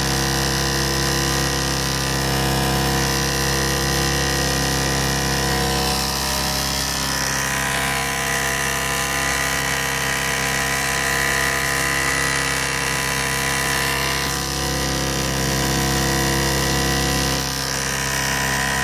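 Steady electric motor hum and whine from a home-built Gérard Morin pump rig and the fan it is running. The high whine grows stronger for several seconds midway, then settles back.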